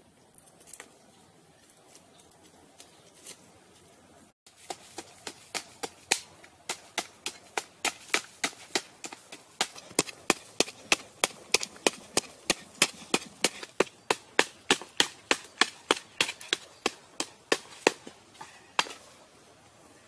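Sharp knocks of repeated striking at a steady pace of about three a second, starting about four and a half seconds in, with a few scattered knocks before.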